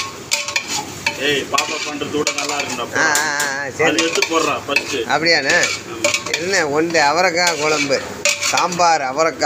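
A long-handled ladle stirring a thick bean curry in a large metal pot, scraping and clinking against the pot's side with each stroke while the curry sizzles. The scraping rises and falls in pitch as the ladle moves back and forth.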